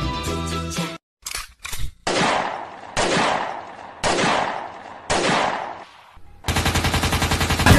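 Music cuts off about a second in. After a couple of short bursts come four loud blasts about a second apart, each dying away quickly, like gunshot sound effects on a clip's soundtrack. Near the end a fast, evenly pulsing sound starts.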